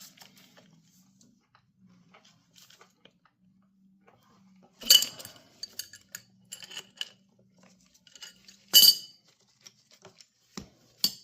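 Steel tools clinking while a chain riveting tool works a master-link rivet: scattered small ticks and a few sharp metallic clinks that ring briefly, two of them much louder than the rest.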